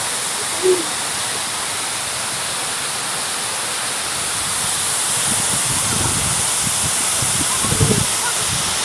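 Thác Tình waterfall rushing: a steady, even noise of falling water. Some low rumbling comes and goes in the second half.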